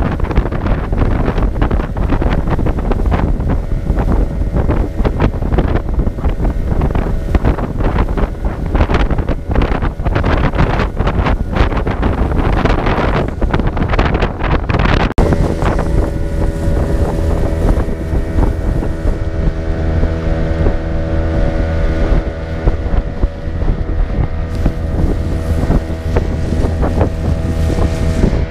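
Small motorboat's engine running at speed, with wind buffeting the microphone and water rushing past the hull. About halfway through, the buffeting drops away and the engine's steady hum comes through plainly.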